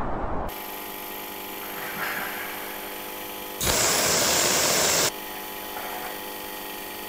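Steady industrial machinery hum with several fixed tones. About three and a half seconds in, a loud hiss of arc welding cuts in for about a second and a half and stops abruptly.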